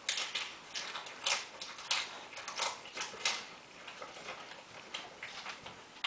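People eating fast in a speed-eating contest: irregular sharp chewing and mouth-smacking clicks, several a second, thinning out after about three and a half seconds.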